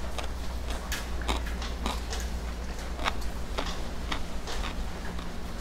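A person chewing food close to the microphone, with irregular sharp clicks about one or two a second over a steady low hum.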